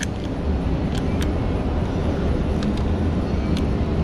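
A steady low machine rumble, with a few faint, light clicks from a 3/8-inch ratchet loosening the nuts on a Fisher XV2 plow pump's solenoid terminals.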